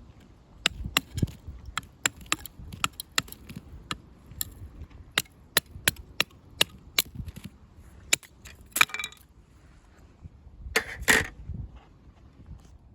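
Firewood cracking and snapping: a run of sharp, irregular cracks, with two longer crunching snaps in the second half.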